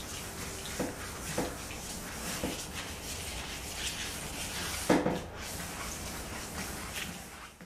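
An abrasive pad hand-sanding a painted car front guard: repeated scrubbing strokes, with a few knocks, the loudest about five seconds in.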